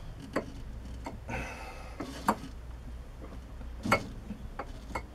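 Irregular metallic clicks and knocks, about six of them, as a lathe drawbar is turned by its hand wheel through the headstock spindle to draw the tooling in, with a short scrape about a second and a half in. A steady low hum runs underneath.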